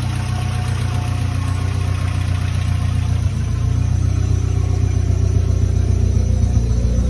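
Ford Sierra RS Cosworth's turbocharged 2.0-litre four-cylinder engine idling steadily.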